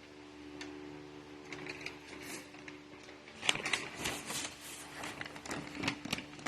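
Metal car plaques being handled: light clicks, taps and scraping, sparse at first and busier from about halfway through, over a faint steady hum.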